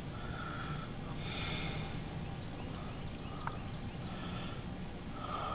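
Faint outdoor ambience: a steady low rumble with short mid-pitched calls repeating every second or so, a brief hiss about a second in, and one small click.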